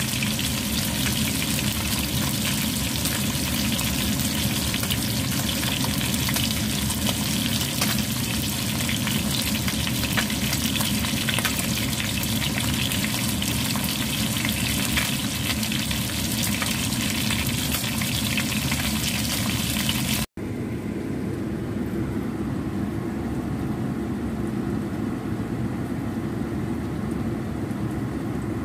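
Fish fillets frying in hot oil in a nonstick pan: a steady sizzle with fine crackles. About twenty seconds in it cuts off abruptly to a steady low hum.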